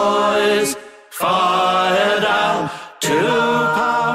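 A cappella shanty group singing in harmony, with several voices holding long notes. The singing drops out briefly about a second in and again just before three seconds, then the voices come back in.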